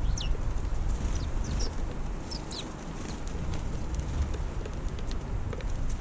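House sparrows chirping: a handful of short, high, downward chirps, most of them in the first half, over a low rumble of wind on the microphone.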